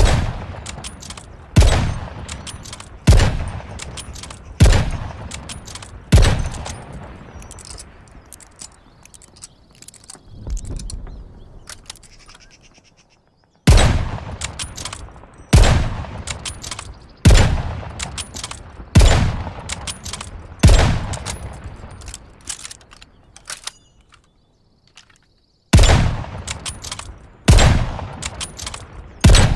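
Three-line rifle (Mosin-Nagant) shots, each ringing out and fading, fired roughly every one and a half to two seconds in runs: five, then a pause of several seconds, then six, a shorter pause, and three more.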